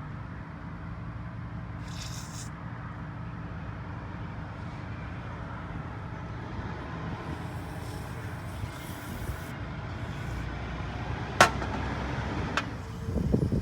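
Small carburetor parts being handled on a workbench over a steady low background hum: two short hissing sounds, then a sharp click about three quarters of the way through, a second lighter click, and a brief rattle near the end.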